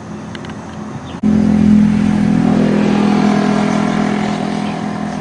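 A motor vehicle engine running close by, cutting in suddenly about a second in as a loud, steady hum.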